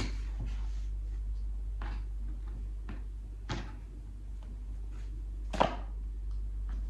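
Tarot cards being handled and laid down on a wooden table: a few short taps and slaps of card on card and on the tabletop, the loudest near the end, over a steady low hum.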